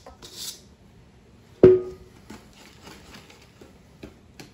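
Stainless steel mixing bowls and a wire whisk: a brief scrape as sugar is pushed out of one bowl, then one sharp metallic clank with a short ringing tone about a second and a half in, followed by a few light clicks of the whisk against the metal.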